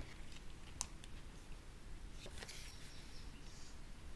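Faint handling noise of an ASUS VivoBook 15 laptop being lifted and turned on its side. There is a sharp click at the start, another just under a second in, and a few soft clicks and rustles about two and a half seconds in.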